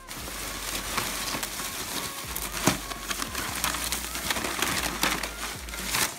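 Clear plastic garbage bag rustling and crinkling as hands dig through it and the tissue paper and price tags inside, with one louder crackle about two and a half seconds in.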